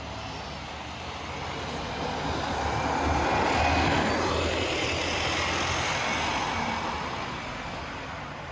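A motor vehicle passing close by on the street: engine and tyre noise swells to a peak about three and a half seconds in, then fades away.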